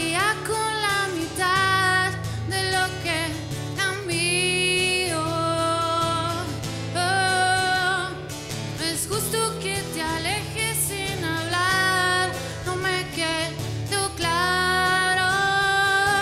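A woman singing a Spanish-language pop ballad to her own acoustic guitar accompaniment, with several long held notes.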